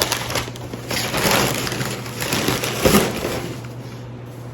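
Rustling and crinkling of packaging being handled by hand, with a louder crinkle about three seconds in, then quieter.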